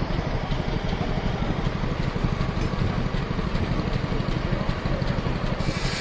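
Steam traction engine running on the belt, driving a sawmill through a long flat drive belt: a steady, rapid low mechanical beat. Near the end a brighter, higher sound comes in over it.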